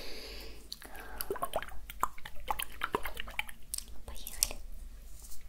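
Pair of glass face-massage globes handled close to the microphone: a dense run of small sharp clicks and wet ticks.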